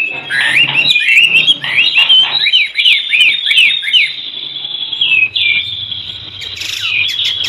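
White-rumped shama singing: a fast, loud run of whistled notes sliding up and down, dense for about the first four seconds and then sparser.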